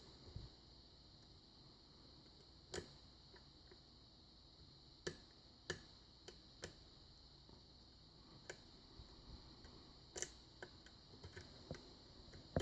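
Faint, irregular clicks and ticks of a lock pick and tension wrench working the pin stack of a Sargent 6-pin lock cylinder, with the clicks coming closer together near the end.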